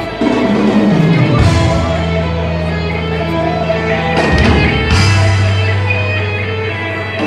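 Live rock band playing loudly through a concert PA, heard from within the audience, with long held low notes: one slides down about a second in, and another starts near five seconds.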